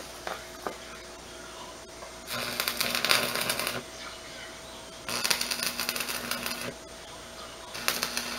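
Electric arc welding on steel rebar: three bursts of sizzling crackle, each about a second and a half long, with a low electrical hum under each one. The last burst begins near the end.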